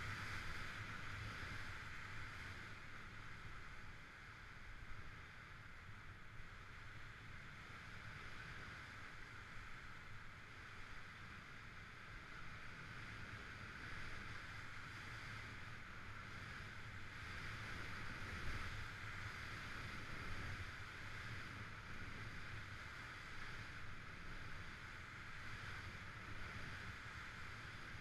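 Skis sliding and scraping over groomed snow during a downhill run, a steady hiss with a low wind rumble on the microphone.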